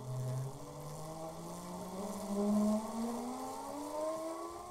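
A buzzing whine with several overtones, rising steadily in pitch, typical of an intro sound effect laid over a title card.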